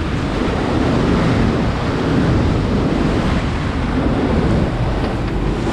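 Steady wind rushing over the microphone and waves and wake churning along a sport-fishing boat under way through heavy swells.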